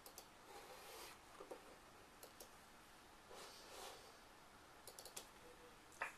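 Sleeping baby ferret hiccuping: faint, sharp little clicks at uneven intervals, with a quick cluster about five seconds in and a louder one near the end. Two soft breaths come between them.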